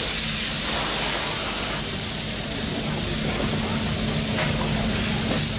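A steady hiss over a constant low hum, with a faint knock about four and a half seconds in.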